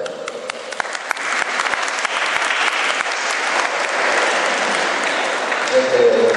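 Audience applauding: many hands clapping, building over the first second or so and then holding steady, with a man's voice coming in near the end.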